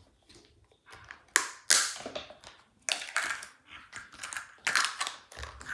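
Small clear plastic cup and lids being handled and set down: a handful of sharp clicks and short rustles, spread out with gaps between them.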